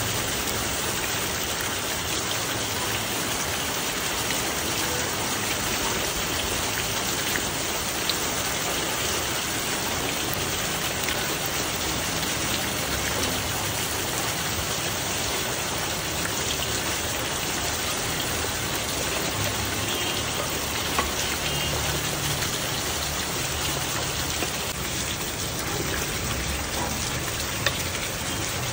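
Steady rain falling, an even hiss that does not let up, with a couple of small sharp clicks.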